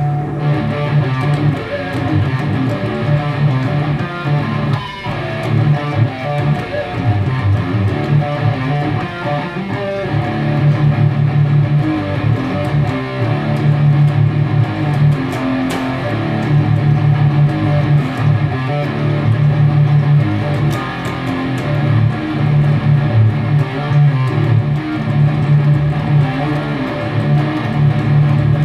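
Distorted Jackson Rhoads electric guitar played through a Peavey 5150 amplifier, playing fast, continuous thrash metal riffs with heavy, pulsing low notes.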